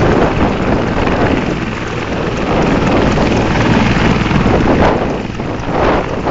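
Mil Mi-24 helicopter's twin turboshaft engines and main rotor running loud at close range, with its rotor downwash buffeting the phone's microphone as a steady rush of wind noise.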